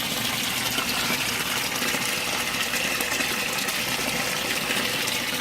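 Water gushing and splashing steadily through an aquaponics system, pushed by a 1100-gallon-per-hour bilge pump, with Venturi aeration churning air into the flow.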